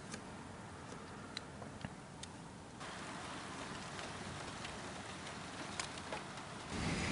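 Steady rain hiss with a few sharp drips ticking, the rain growing louder about three seconds in, and a low rumble of thunder rising near the end.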